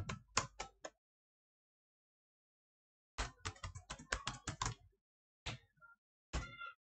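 Computer keyboard typing in two bursts of quick keystrokes, with about two seconds of silence between them and a few single keystrokes near the end.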